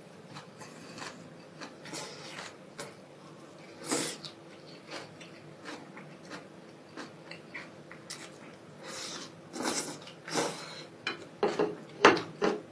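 A person eating noodles and pickled greens close to a clip-on microphone: wet chewing throughout and several loud slurps, one about four seconds in, more around nine to ten seconds, and the loudest cluster near the end.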